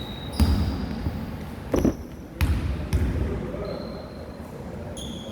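Basketball game play on an indoor court: the ball bouncing with a few sharp thuds, about half a second in and again around two seconds, with short high squeaks in between and players' voices in the background.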